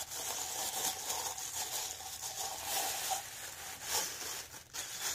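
Thin white wrapping paper rustling and crinkling as a wine glass is unwrapped by hand, with louder crinkles near the end.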